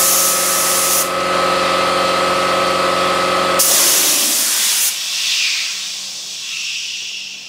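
Paint spray gun hissing as it sprays, in two bursts of about a second each: one at the start and one about three and a half seconds in. Under it runs a steady motor hum that stops when the second burst begins. A softer hiss then fades away.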